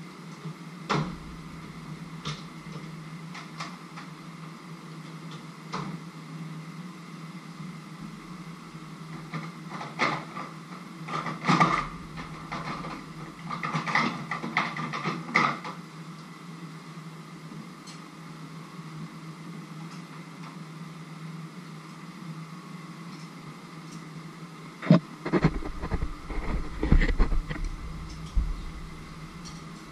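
A steady low hum with scattered clinks and knocks of pots and kitchen utensils, a busy run of them in the middle. A few heavier, deeper thumps come near the end.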